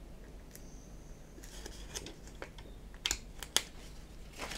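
Faint clicks and ticks of thin plastic sheet being flexed by hand as a small oval, scored through with a sharpened needle, is popped out of it. Two sharper clicks come about three seconds in.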